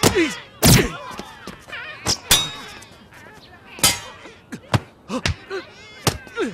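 Fight sound effects: a quick series of about eight hits and thuds, one followed by a short ringing tone, with short grunts between the blows.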